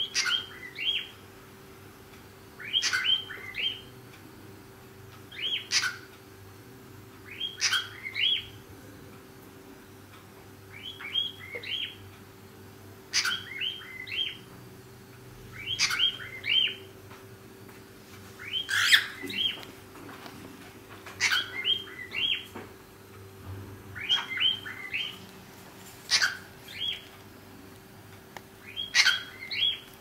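Cockatiel chirping in short bursts of quick high chirps, one burst every two to three seconds, each opening with a sharp click, over a faint steady hum.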